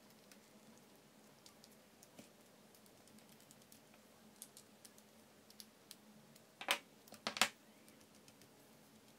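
Faint small clicks and taps of 3D-printed plastic parts and a screwdriver being handled and fitted together, with two short, louder scrapes a little after halfway through as a part is pushed into place.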